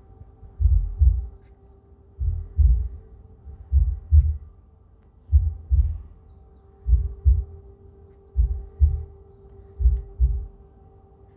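Recorded heartbeat played from loudspeakers built into the pedestal of a granite memorial statue: a deep double beat, lub-dub, about every second and a half. A steady hum runs underneath.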